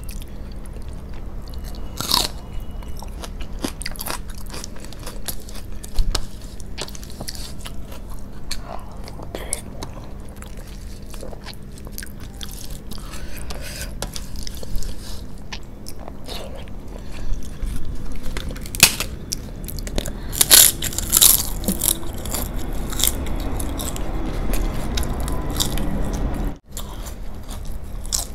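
Close-miked chewing and mouth sounds of rice and curry eaten by hand, with sharp crisp crunches of papad now and then, thickest about two-thirds of the way through.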